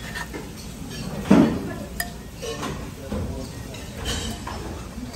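Tableware clinking: dishes and metal cutlery knocking against plates and bowls over a background of chatter, with a louder knock about a second in.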